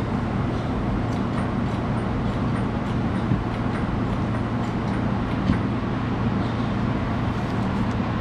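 Steady auto-shop background noise: an even hiss over a constant low hum, with no distinct events.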